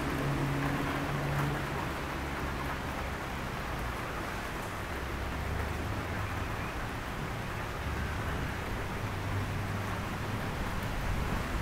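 Heavy rain falling steadily, an even hiss, with a low steady hum underneath.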